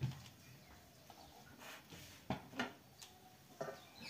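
A few light, sharp knocks and clicks of cooking utensils during roti-making, with stretches of quiet between them.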